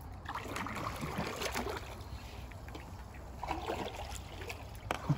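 Water trickling and lapping around a small boat in a shallow creek, with scattered light knocks and rustles from the boat and paddle, and a sharp knock near the end.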